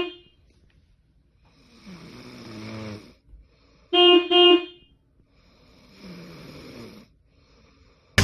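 A person snoring: two long snores about four seconds apart. Between them, about four seconds in, two short, loud horn toots.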